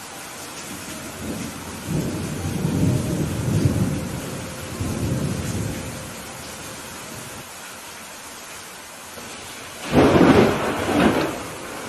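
Steady rain with thunder: a low rolling rumble builds and fades over the first half, then a louder, sharper clap of thunder breaks near the end, peaking twice.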